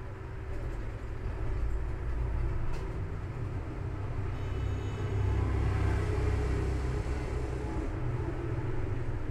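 Low, steady background rumble that swells after a second or so and again about halfway through, with a single faint click near three seconds.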